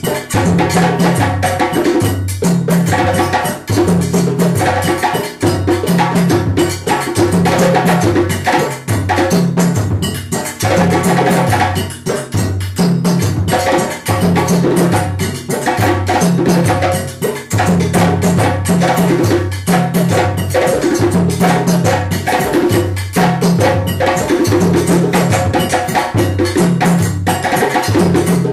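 West African drum ensemble playing together: two djembes with hard, fast hand strikes over the repeating low tones of the sangban and dununba bass drums, in a steady driving rhythm.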